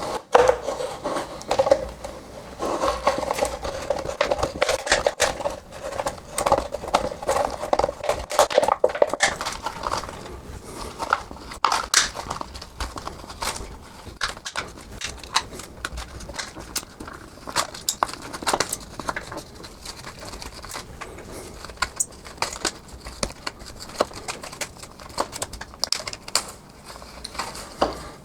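Thin PET plastic bottle crinkling and crackling as it is handled and cut into a strip with a pocket-knife blade, with many irregular small clicks and a rasping scrape of plastic over the first ten seconds or so.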